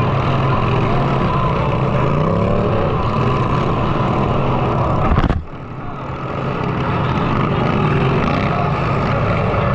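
Derby lawnmower engines running loudly, with pitch rising and falling as they rev. A single sharp bang comes about five seconds in; right after it the engine noise drops off and then builds back up.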